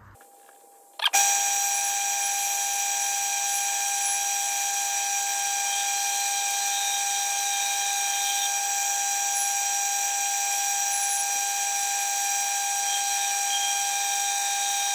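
Myford ML7 lathe starting up about a second in, then running steadily with a high whine while taking a light skimming cut along a steel bar.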